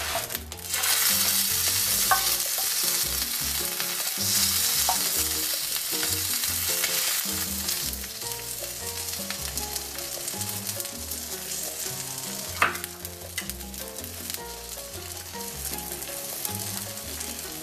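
Quesadilla sizzling in oil on a griddle as the tortilla is roasted until it browns and crisps. The sizzle comes up strongly just under a second in and eases somewhat after the middle.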